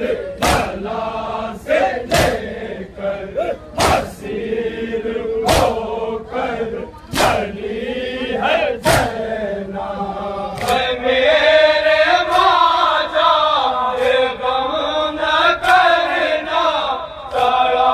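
Men's voices chanting a slow mournful lament (nauha) together, over sharp regular beats about every second and a half to two seconds. Near the middle the chanting becomes louder and fuller, and the beats fade into it.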